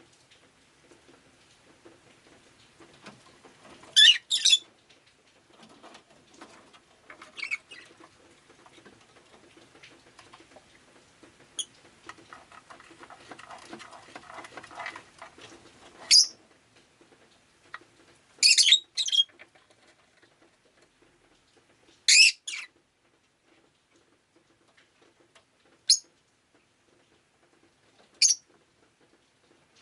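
Rosy-faced lovebird giving short, sharp chirps, singly or in quick pairs, every few seconds. A soft rushing noise rises and fades in the middle.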